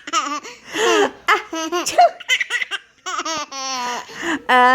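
A baby laughing in a string of short, high-pitched giggles and squeals, with a longer held squeal near the end.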